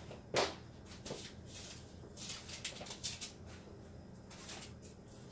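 Someone rummaging through things: one sharp knock about half a second in, then faint scattered clicks and rustles.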